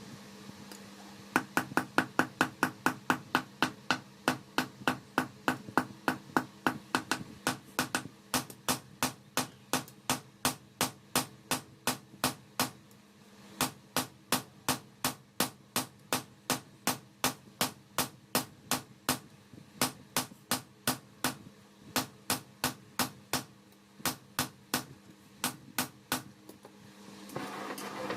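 Hand hammer striking steel on an anvil, forging a khukuri blade: a steady run of sharp metallic blows, about three a second, with one short pause around the middle. A steady low hum runs underneath.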